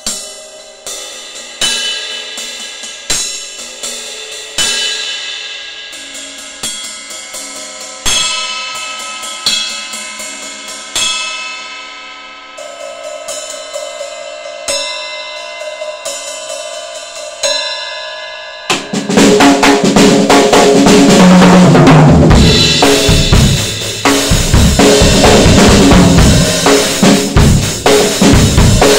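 Acoustic drum kit with bronze cymbals: for about the first two-thirds, single strikes roughly every second and a half, each left to ring out. Then loud, dense full-kit playing breaks in, with bass drum, snare, toms and cymbals.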